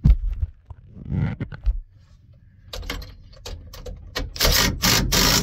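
Metal clinks, knocks and rattles of tools and hardware being worked against a pinsetter's elevator frame as bolts are started. Longer scraping, rattling bursts come near the end.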